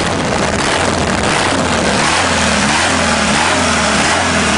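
Diesel engine of a mini tractor puller running loud just after a cold start, revved up and down again and again through its open vertical exhaust stack.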